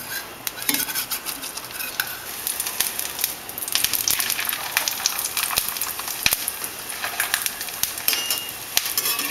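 Scallion pancake sizzling and crackling in oil in a stainless steel frying pan, with a metal spatula scraping under it and flipping it. The sizzle grows louder a little before four seconds in, as the pancake is turned, and there is one sharp knock of metal on the pan about six seconds in.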